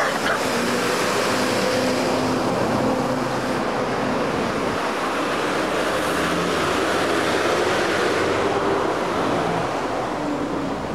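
Street traffic, including a city bus, passing close by: a steady rush of engine and tyre noise with a low engine hum, easing off near the end.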